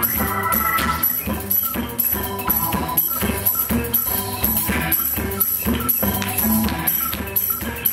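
A live band plays an instrumental passage without singing. A drum kit keeps a steady beat under guitars, bass and keyboard.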